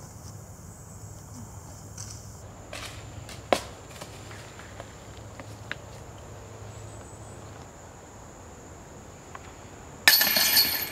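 A few faint clicks, one sharper about three and a half seconds in. Near the end comes a sudden loud metallic crash and jingle: a disc striking the hanging chains of a disc golf basket.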